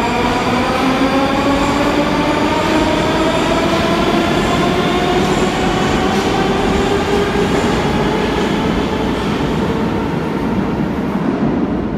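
Moscow Metro train pulling out of the station. Its traction motors give a whine that climbs steadily in pitch as it speeds up, over the rumble of the wheels on the rails, and the sound fades near the end as the train leaves.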